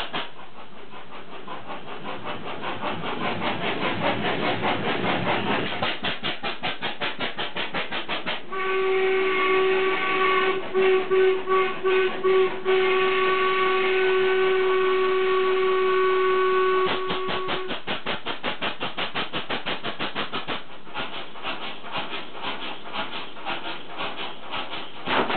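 Very large old stationary mine engine with a 6.5-ton flywheel running with a rapid, regular train of exhaust bangs. About a third of the way in, a whistle sounds over it, first in a few short blasts and then held steady for about five seconds before it stops.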